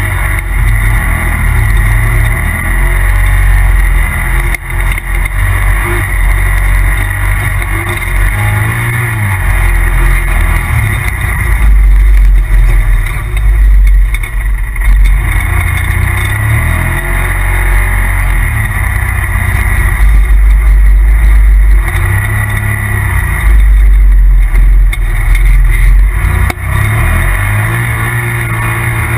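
A 2017 Polaris RZR Turbo side-by-side's turbocharged twin-cylinder engine running hard under way. It rises and falls as the throttle is worked, with several loud pushes in the second half.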